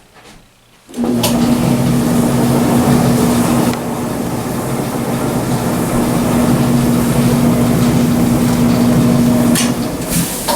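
Whirlpool Estate clothes dryer starting about a second in and running, a steady motor hum under the noise of the turning drum, and stopping near the end. The drum is spinning again on a new drive belt, idler pulley and drum rollers.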